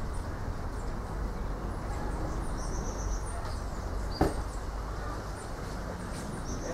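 Steady wind buffeting the microphone with a low rumble, while small birds chirp and twitter high above it. One sharp click about four seconds in.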